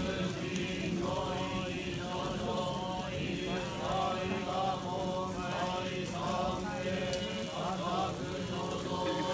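A group of men chanting a Buddhist sutra or mantra in unison, a steady held drone of voices that runs on without pause.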